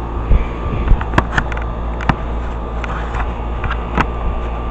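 Carrier 38BRC central air conditioner's outdoor unit running: a steady hum from the compressor and condenser fan. Several short sharp clicks or taps are heard over it.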